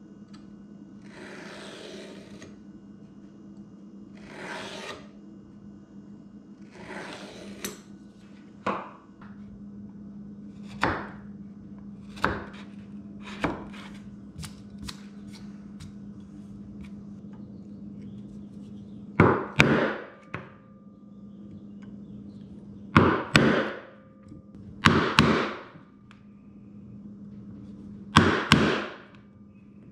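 Hand-tool work on a cherry board: a few soft scratching strokes as a line is marked along a square, some light clicks of tools on the bench, then four loud crunching cuts in the second half as a bench chisel is driven into the wood at the marked line for a stopped dado. A steady low hum lies underneath.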